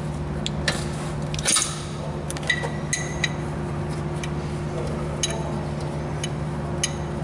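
Irregular metallic clicks and clinks of a wrench on the rear brake caliper bolts, a few of them ringing briefly, over a steady low hum.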